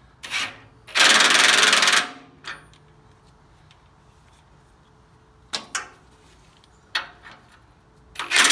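Power impact wrench hammering a bolt home in one burst of about a second, while bracket bolts go into the tractor's cast axle housing. A few separate metal clanks and knocks of tools and parts follow.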